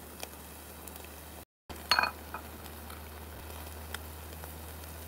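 Pork skewers being turned on a small charcoal grill: a cluster of sharp metallic clinks against the wire grate about two seconds in, with a few lighter clicks, over a faint sizzle and a steady low hum.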